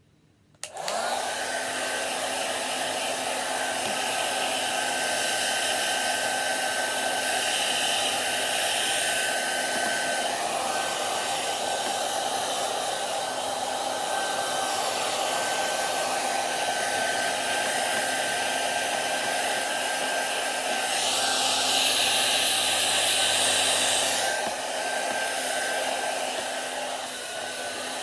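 Hair dryer switched on under a second in and running steadily with a whirring hum; for a few seconds near the three-quarter mark it gets louder and brighter, then settles back.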